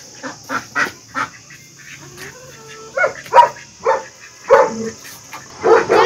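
Domestic ducks quacking in short, irregular calls: a few quick ones in the first second, then more from about three seconds in.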